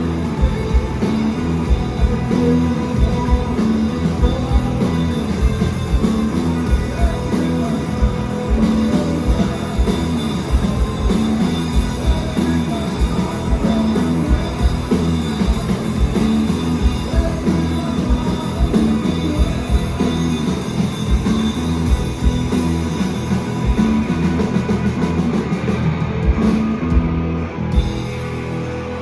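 Live rock band playing: a steady drum beat under droning bass and guitar, with some singing. The high end thins out near the end.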